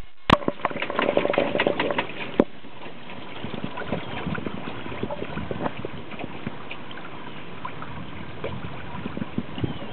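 Water gurgling and splashing along the hull of a Frolic2 sailboat under way, a busy run of small trickles and slaps, with two sharp knocks in the first few seconds.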